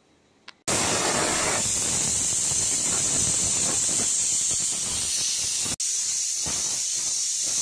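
Loud, steady hiss of escaping steam from the soup's cooking, starting suddenly under a second in and broken once by a very brief dropout about six seconds in.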